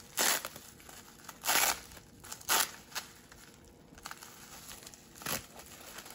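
Foam packing peanuts and plastic bubble wrap rustling and crinkling as a hand digs through a cardboard shipping box and lifts out a wrapped item, in four short bursts.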